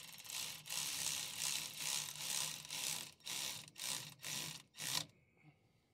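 Hand ratchet wrench clicking in repeated short strokes, about two a second, as the bolts on a skid-steer's hydraulic control actuator are run in and tightened; the clicking stops about five seconds in.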